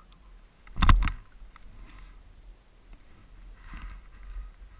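Handling noise on a body-mounted action camera: one loud bump with a rustle about a second in, then faint rustling of gear.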